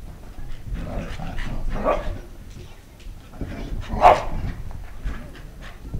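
A dog barking and yipping in play, a string of short barks with the two loudest about two seconds and four seconds in.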